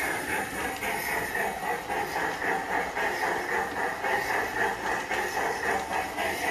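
G-scale model steam locomotive and coaches running on brass track: a steady mechanical hum and rattle that swells about twice a second.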